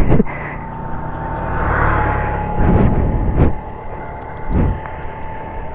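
Motorcycle engine running on the road with wind on the microphone, a thin steady whine over it from about half a second in, and a few short thumps.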